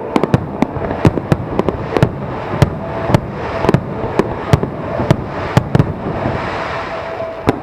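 Aerial fireworks display: a rapid, irregular string of sharp bangs from bursting shells over a continuous rumble and crackle, with a hissing swell about six seconds in.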